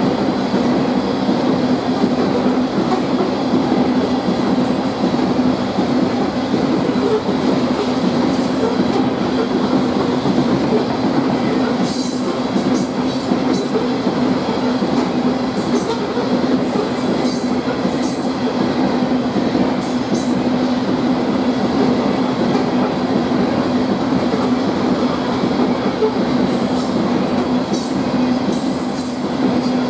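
Loaded coal train's cars rolling steadily past, a continuous rumble of steel wheels on rail, with brief high-pitched wheel squeals partway through and again near the end.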